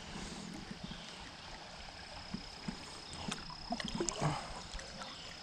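Creek water lapping and gurgling around a kayak hull as it drifts downstream, with a cluster of small splashes and drips about three to four seconds in.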